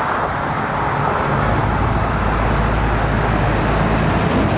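A motor vehicle's engine running steadily, with a low rumble and road traffic noise.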